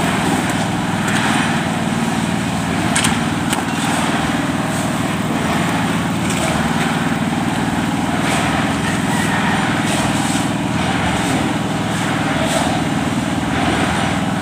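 A small engine running steadily, with a couple of sharp clicks about three seconds in.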